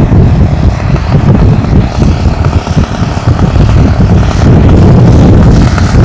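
Strong wind buffeting the microphone in gusts, over the drone of a ZDZ 80 two-stroke gasoline engine on a 33% scale CAP 232 radio-controlled plane flying overhead. The engine sound grows brighter near the end as the plane comes in low.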